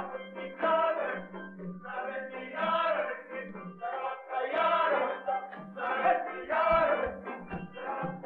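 Traditional Albanian wedding folk song: a group of voices singing in phrases over a steady low drone. Low regular beats join in about six seconds in.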